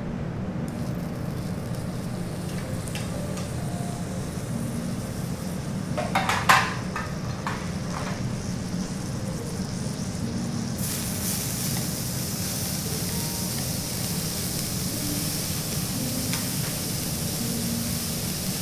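A lump of fat sizzling on a hot teppanyaki iron griddle, the sizzle setting in suddenly about eleven seconds in and continuing steadily, over a steady low hum. A short burst of sharp clicks about six seconds in is the loudest moment.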